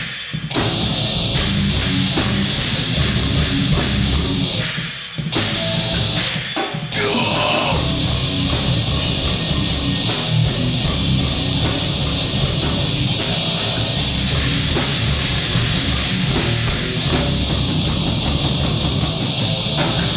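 Live heavy rock band playing loud, with electric guitar, bass and drums; the band stops short for a moment a few times in the first seven seconds.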